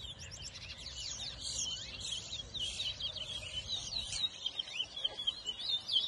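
Twa-twa (large-billed seed finches) singing in a song race: a fast, unbroken run of high whistled and warbled notes, overlapping as if more than one bird is singing at once.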